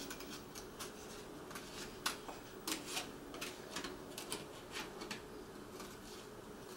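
Scissors snipping through a paper plate: a series of short, faint cuts, irregular, about two a second.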